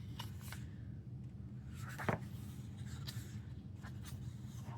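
Paper rustling and soft taps as pages of an album photobook are handled and turned, the loudest rustle about two seconds in, over a steady low background hum.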